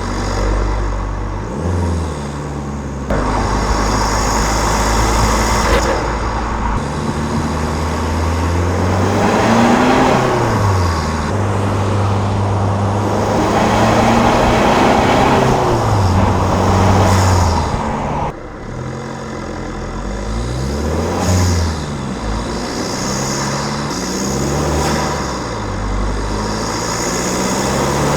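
Stage 1 remapped VW Scirocco 2.0 TDI 170 four-cylinder turbodiesel with an open intake, its engine note climbing and falling repeatedly under boost. The climbs are long in the first part and become quicker rises and falls in the last third, after a sudden drop about eighteen seconds in.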